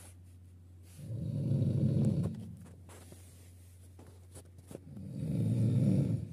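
A sleeping person snoring loudly: two long, rough snores about four seconds apart, over a steady low hum.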